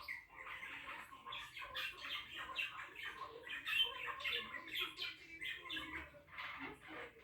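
Cockatiel chattering in a continuous stream of short, scratchy chirps and squawks.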